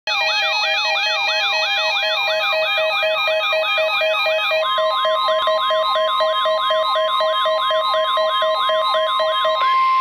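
Several NOAA weather alert radios (Midland WR-300, RadioShack 12-521 and 12-991) alarming at once for a Special Marine Warning: repeating falling siren sweeps layered with steady pulsing beeps. About halfway through, one beeping pattern stops and a long steady tone begins, the weather radio's warning alarm tone that comes before the broadcast message; the siren and beeps cut off shortly before the end.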